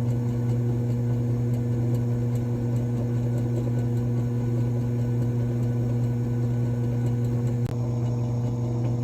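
Benchtop drill press motor running at a steady speed, a constant even hum, while it is used to spin and round over the head of a model axle. A single short click about three-quarters of the way through.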